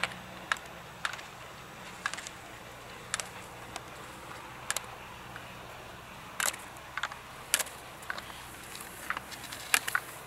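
A series of short, sharp clicks and taps at uneven intervals, roughly one a second, over a faint steady hum.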